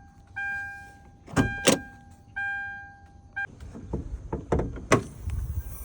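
An electronic chime sounds twice, each a single ringing tone that fades over about a second. Two sharp clunks come between the chimes, and a series of clicks and knocks follows near the end.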